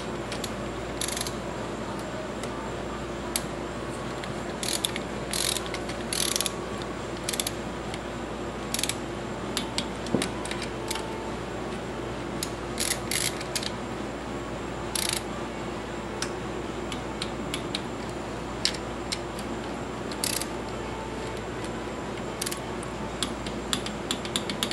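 Ratchet wrench clicking in short, irregular runs as camshaft cap bolts on a motorcycle cylinder head are run down and torqued to 8 Nm.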